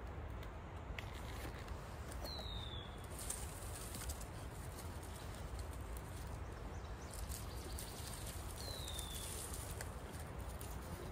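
A bird gives a thin whistle that slides downward, twice, about six seconds apart, over a steady outdoor hiss. A few faint clicks come as twigs are laid on a small kindling fire.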